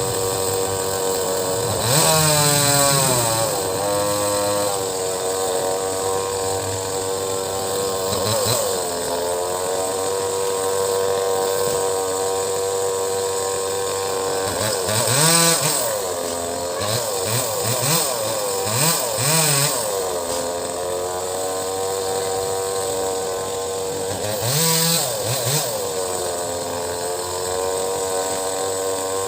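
Two-stroke chainsaw running at steady high revs, its engine pitch dipping and recovering about five times as it bites into the mango wood.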